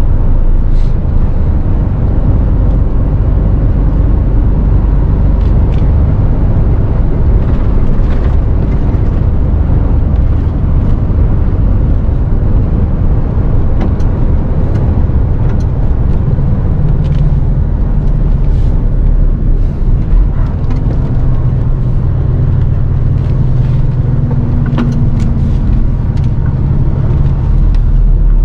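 Inside the cab of a Mercedes-Benz Actros 510 bhp artic truck on the move: the straight-six diesel running under a steady low drone of engine and road noise. The engine note grows stronger in the second half as the truck nears a roundabout.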